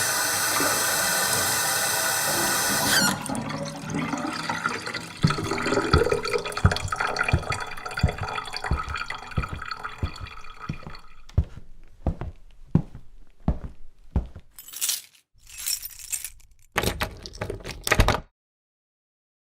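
A rush of running water for about three seconds, then splashing broken by a string of thuds and knocks that thin out. A few short loud rushes of noise come near the end, then the sound cuts off.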